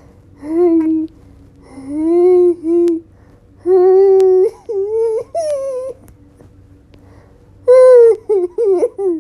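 A person's high-pitched, drawn-out whimpering squeals, one after another with short pauses, as she holds in laughter; a burst of several shorter squeals comes near the end.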